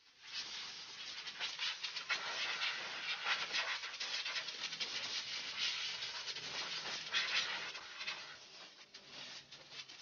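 Compressed-air blow gun (air duster) hissing as it blows sanding dust off a bird cage, the stage of cleaning before clear-coating. The hiss comes in uneven spurts and tails off near the end.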